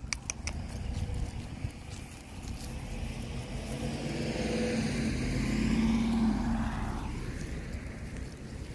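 A car driving past, growing louder over a few seconds to its loudest about six seconds in, then fading away.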